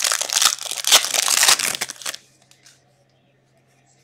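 Foil wrapper of a hockey card pack torn open and crinkled by hand, a loud crackling for about two seconds that then stops.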